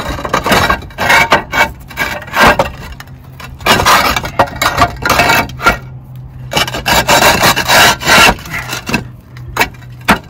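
Cement roof tiles being slid by hand back down into place, scraping against the neighbouring tiles in several long grinding strokes, with a few sharp clacks as they settle near the end.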